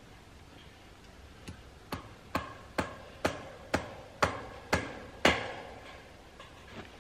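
Hammer tapping a fence staple into a wooden fence post: about eight sharp strikes, roughly two a second, each harder than the last, ending on one loud blow.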